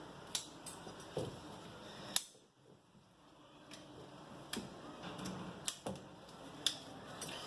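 Scattered sharp clicks and light knocks of small metal and plastic engine parts being handled, as fuel injectors are worked off the fuel rail of a GM Family II 2.0 engine. About seven clicks, the loudest a little after two seconds in.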